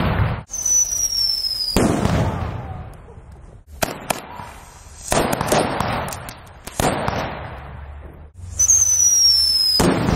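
Ground fireworks going off in a string of short bursts: hissing and crackling, two thin whistles that fall slightly in pitch, and a few sharp bangs.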